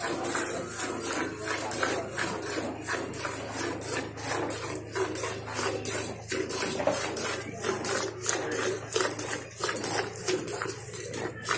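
Hand milking: jets of milk squirting from a cow's teats into a pail in a rhythmic hiss, about two squirts a second.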